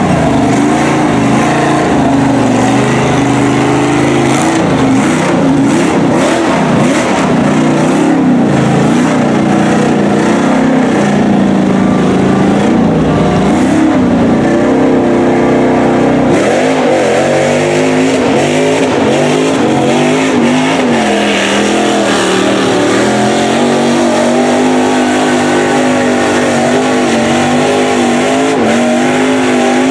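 Engine of a lifted Chevrolet Silverado mud truck on tractor tires revving up and down as it churns through deep water and mud, then settling into a steadier pull about halfway through.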